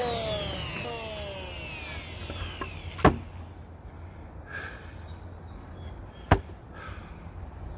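Dewalt D26676 electric hand planer's motor coasting down after being switched off, its whine falling in pitch and fading over the first few seconds. Then two sharp wooden knocks about three seconds apart as the pallet board is handled and turned up on edge on the bench.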